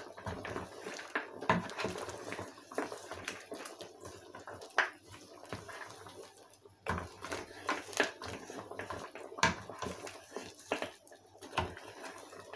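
Pot of assorted meat boiling in water, stirred with a wooden spoon, with irregular clicks and knocks from the spoon and pot.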